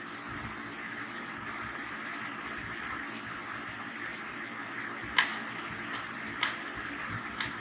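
Steady background hiss with three light, sharp clicks in the second half, from small parts and fittings being handled while a television is taken apart.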